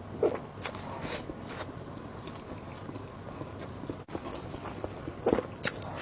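Close-miked eating: a cluster of sharp bites and crunchy mouth clicks in the first second and a half, quieter chewing, then another bite about five seconds in.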